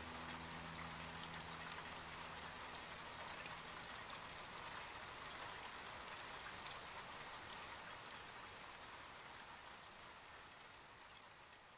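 A soft, even hiss of rain with many fine ticks of drops. It fades gradually toward the end. The last low sustained notes of music die away in the first couple of seconds.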